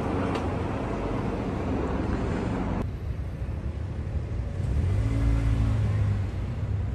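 City street traffic: a steady low rumble of passing cars that drops suddenly about three seconds in. About five seconds in, a vehicle engine hum swells louder, then fades.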